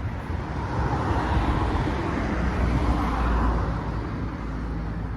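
A motor passing close by: a steady low engine drone with a wash of noise that swells over the first few seconds and then eases off.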